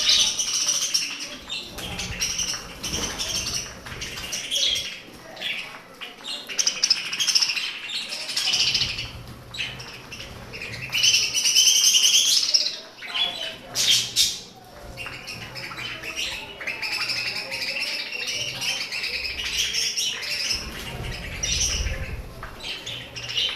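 A flock of pet budgerigars chattering and chirping continuously, with a louder burst of chirping about halfway through.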